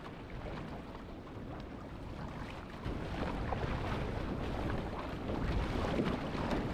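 Rough ocean water churning and splashing around a small boat, with wind buffeting the microphone as a low rumble. The water gets louder about halfway through as the sea turns to whitewater.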